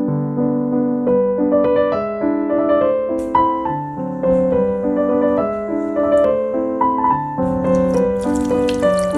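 Background piano music: a melody of held notes moving in a steady rhythm.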